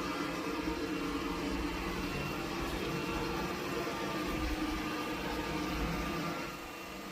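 Cuckoo Power Clone robot vacuum running: a steady motor and suction hum with a few steady tones in it, dropping a little in level about six and a half seconds in.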